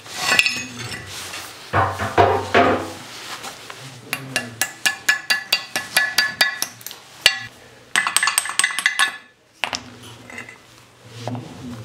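Cast-iron parts of an old pipe vise clinking and knocking against each other and the floor as they are handled and taken apart, with a quick run of regular metallic clicks in the middle.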